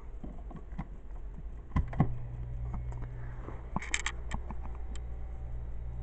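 Plastic clicks and knocks of a plug being handled at a plug-in power meter in a wall socket, with two sharper clunks a little under two seconds in. Right after them a low steady hum starts and keeps going, a refrigerator compressor kicking on once the appliances are plugged in.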